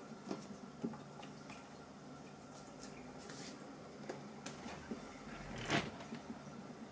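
Faint, scattered clicks and taps of hands handling a plastic notebook case, pressing around the reassembled shell to check it is snapped shut, with one louder brushing scrape a little before the end.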